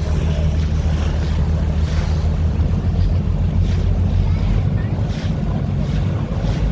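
A boat's engine running at a steady low hum, with water noise and wind buffeting the microphone.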